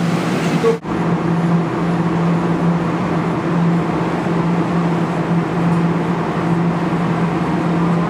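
Steady electric hum with an even whirring noise from a claw machine as its claw is worked; the sound briefly drops out just under a second in.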